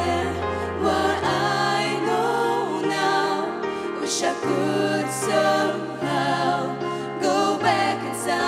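Young voices singing a slow pop ballad in English over a backing track of sustained bass notes and chords.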